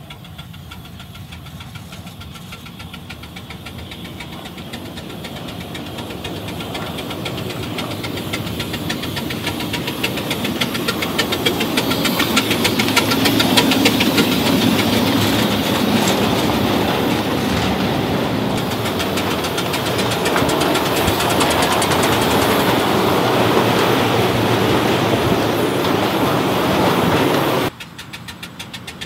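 A 2.5-inch scale wood-fired live steam locomotive running on 7.5-inch gauge track inside a tunnel: rapid, even exhaust beats and wheel clatter, growing louder as it approaches and passes, then dropping off suddenly near the end.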